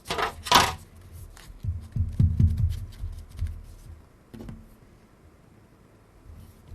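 Small handling noises of hand work at a bench: a brief rustling rush at the start, then a run of low knocks and light taps that die away to quiet in the second half.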